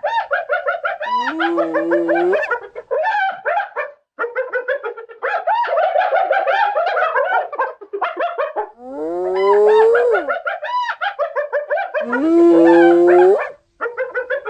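Spotted hyenas giggling: quick runs of short, high-pitched laugh-like notes, broken by several long drawn-out calls, one sliding down in pitch about nine seconds in.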